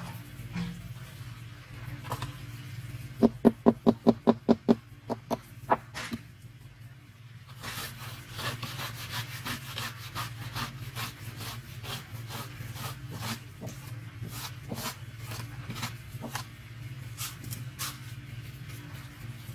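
A wooden straightedge screeding wet concrete: a quick run of about nine knocks as the board is tapped against the slab, two more a moment later, then a long run of scraping strokes as it is rubbed back and forth over the wet surface. A steady low hum runs underneath.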